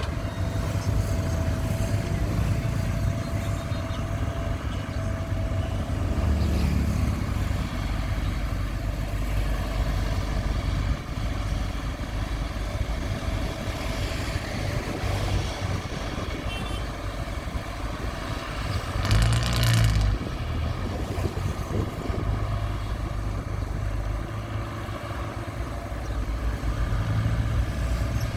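Heavy diesel earthmoving machinery, an excavator and a dump truck, running steadily at work. About two-thirds of the way in there is a brief louder, rougher surge.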